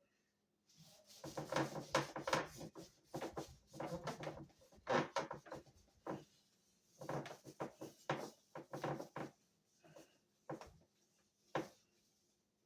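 A paper towel with a little gun oil on it is rubbed over the wooden buttstock of a Marlin 30W lever-action rifle, in uneven wiping strokes that come in bunches with short pauses between them.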